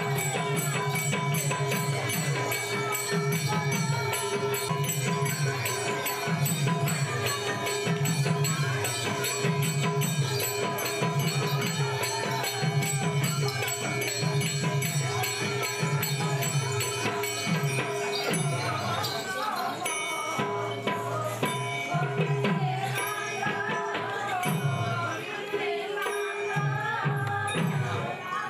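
Live devotional dance music accompanying a Manipuri Raas Leela: a drum beats a steady rhythm of about one stroke a second under jingling hand cymbals and a held drone, with a wavering melody line that becomes more prominent about two-thirds of the way in.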